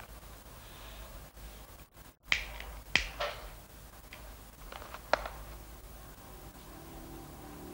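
A cigarette being lit by hand: four sharp clicks spread over about three seconds, the third followed by a short scratchy flare. Soft music fades in near the end.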